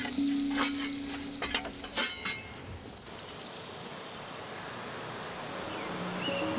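Hot rocks sizzling and hissing in water inside a wooden dugout canoe as it is steamed, with a few sharp knocks of stone on stone in the first two seconds. A steady hiss carries on after them.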